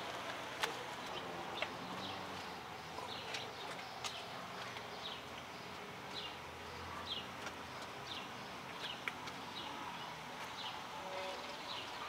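A small bird chirping over and over, short high downward-sliding chirps at about one a second, faint against a steady background hiss. A couple of sharp clicks stand out in the first two seconds, and another comes near the nine-second mark.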